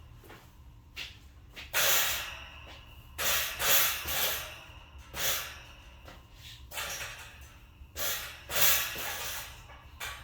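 A person breathing hard: a series of short, noisy breaths, about seven, with pauses of a second or more between them.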